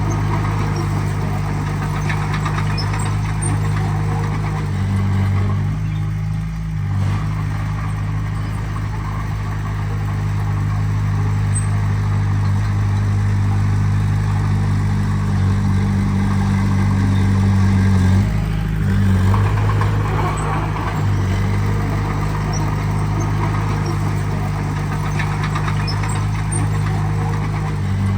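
Diesel engine of a heavy earthmoving machine running steadily, its note shifting briefly twice, about six seconds in and again around eighteen to twenty seconds.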